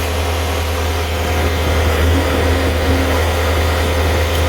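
Skid steer loader engine idling steadily, a constant low drone with a steady mid-pitched hum over it, while the machine stands locked and not yet moving.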